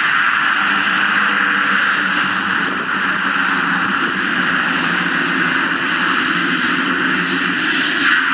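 Pilatus PC-12's single PT6A turboprop engine and propeller running steadily, a continuous whine-and-rush with a steady lower drone underneath.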